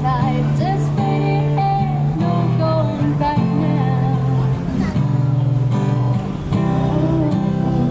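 A woman singing a song into a microphone while strumming an acoustic guitar, her voice amplified through a small speaker.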